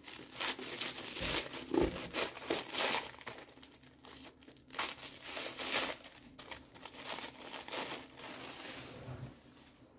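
Tissue paper being torn and crumpled by hand to unwrap a hardback book: irregular rustling and ripping, busiest in the first half, with two soft knocks a second or two in.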